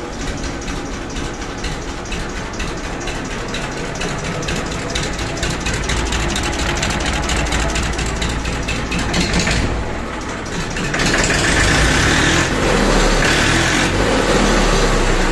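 TAFE 30 DI tractor's Simpson S318 three-cylinder diesel engine running with a steady clatter, echoing loudly off the walls of a small concrete shed. It gets louder about eleven seconds in.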